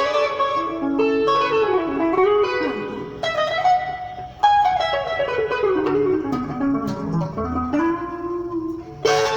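Electric guitar playing a fast sebene lead in soukous style: quick plucked melodic runs that mostly fall in pitch. A fresh phrase starts sharply near the middle, after a long downward run that tails off quieter before the next phrase just before the end.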